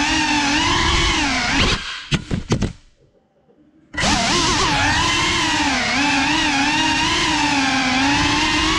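GEPRC Cinelog35 FPV drone's brushless motors and propellers whining, the pitch rising and falling with throttle. About two seconds in, a few sharp knocks, then the motors cut out for about a second before spinning back up and the drone flies on.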